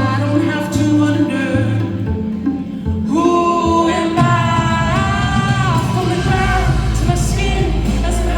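A song with a lead vocal singing held notes over full backing music. A strong deep bass comes in about six seconds in.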